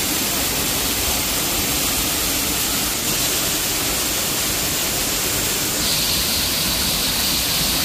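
Waterfall rushing: a steady rush of water pouring over rocks, its hiss turning a little brighter about six seconds in.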